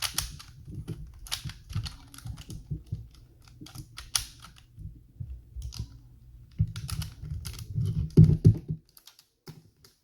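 LEGO plastic parts of a puzzle box clicking and clattering as pieces are handled and pushed back into place, with rapid irregular clicks and a dull handling rumble. The clicks are loudest around eight seconds in and stop about nine seconds in.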